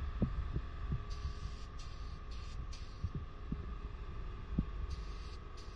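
A steady low hum with a handful of short, soft low thumps scattered through it.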